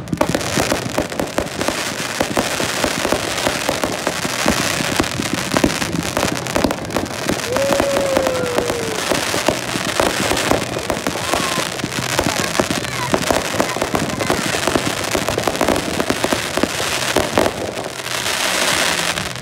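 Fireworks display: a continuous dense run of bangs and crackling from shells bursting overhead, getting louder near the end.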